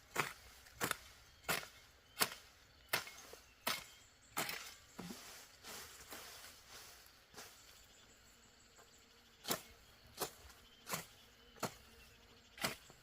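Hand hoe chopping into soil with steady, even strokes, about one and a half a second. The strokes stop for about five seconds midway, then start again.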